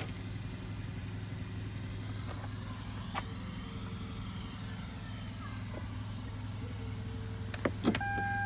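2019 BMW X7 xDrive50i idling with a steady low hum. Near the end come two sharp clicks, then a steady electronic beep starts.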